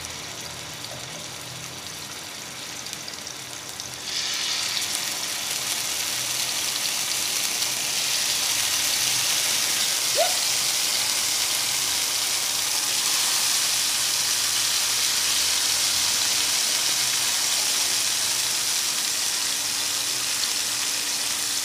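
Marinated fish pieces frying in hot mustard oil, a steady sizzle. It gets louder about four seconds in, as more pieces go into the pan, then holds steady.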